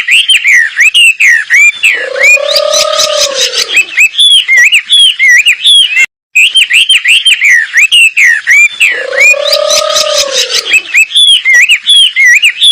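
Wambi birdsong played as a masteran training recording: quick bouncing chirped whistles, broken twice by a lower, drawn-out arched note with a raspy buzz over it. The same phrase of about six seconds repeats after a brief dropout.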